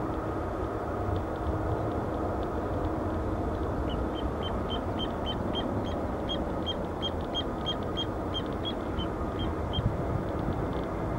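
Steady low rumble of a distant Airbus A330-300 airliner on final approach. A short high chirp repeats about four times a second from about four seconds in until nearly ten seconds in.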